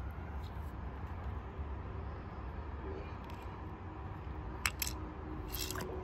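A steady low rumble of background noise, with two sharp clicks close together about three-quarters of the way through and a short hiss soon after; a faint steady hum comes in around the middle.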